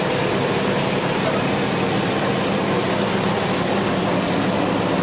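A vehicle engine running, a steady drone with a constant low hum.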